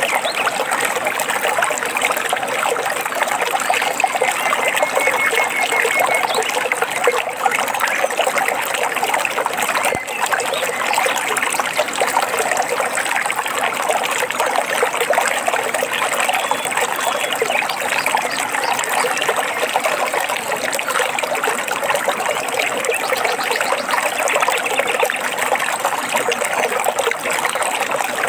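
Forest stream running and trickling over rocks in an even, steady rush.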